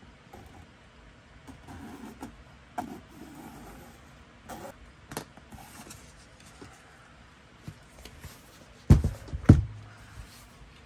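Paper and book being handled on a tabletop: faint scratching and rustling with a few light taps, then two loud thumps about half a second apart near the end.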